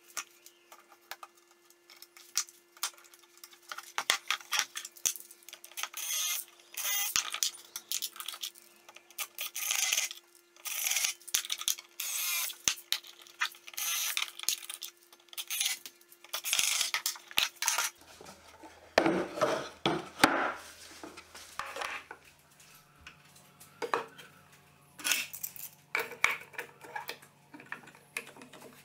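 Workshop assembly sounds: plywood pieces and bar clamps knocked and set down on a bench, along with short whirring runs of a cordless drill-driver driving screws into plywood. The sounds come as a string of separate clatters and short bursts, some about a second long.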